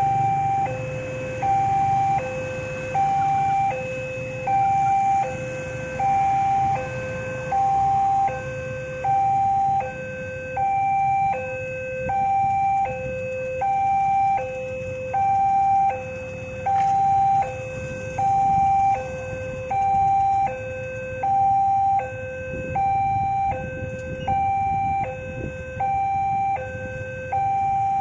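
Indonesian railway level-crossing warning alarm: an electronic two-tone chime, a higher and a lower tone alternating steadily about once a second, signalling that a train is approaching and the barriers are closing. Low traffic rumble from waiting motorcycles runs underneath.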